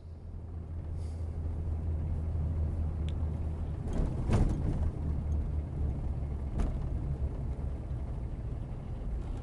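A car driving, heard from inside the cabin through a dash camera: a steady low road and engine rumble, with a few faint ticks.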